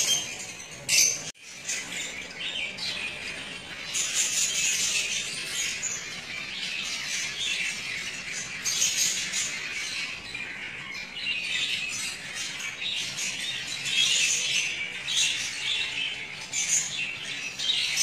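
A flock of small parrots, budgerigars among them, chattering and squawking continuously in a high, busy twitter. The sound briefly drops out about a second in.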